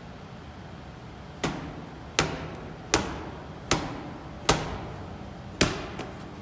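Medicine ball thrown in chest passes against a wall, six sharp slaps with a short echo, most about three quarters of a second apart, ending with a small bounce as the ball drops to the floor.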